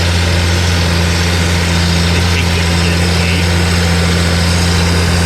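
Tractor engine running at a steady speed, a constant low drone that does not change.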